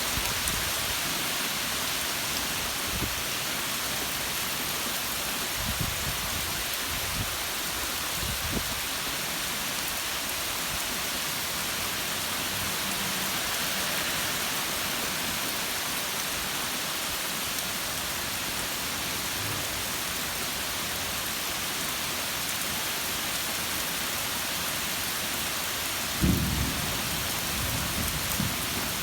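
Steady summer rain falling, an even hiss of drops. A few brief low rumbles come through it, the strongest about 26 seconds in.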